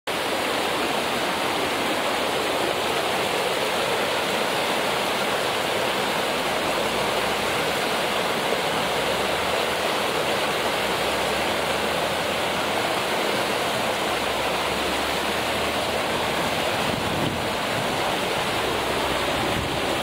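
Shallow stream flowing over a rocky bed: a steady, even rush of moving water.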